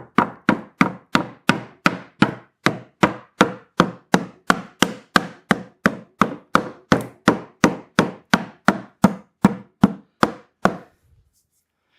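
Rubber mallet tapping the dovetail joints of a cedar beehive box together: a steady run of about thirty even strikes, close to three a second, that stops shortly before the end.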